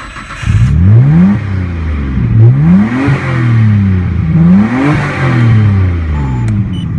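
Nismo S1-tuned RB26DETT twin-turbo straight-six in a BNR32 Skyline GT-R, breathing through a Nismo Weldina exhaust, revving up and easing back down three times, then settling to a steady lower speed near the end.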